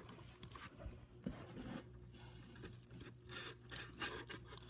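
A hand rubbing and scraping a garlic bulb against the cardboard floor of a box: faint, irregular papery scratching in short bursts.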